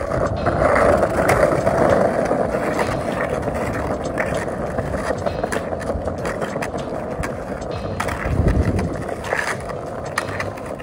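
Skateboard rolling across stone paving tiles during freestyle walking footwork: a steady rolling rumble with scattered light clicks. A louder, deeper rumble swells about eight seconds in.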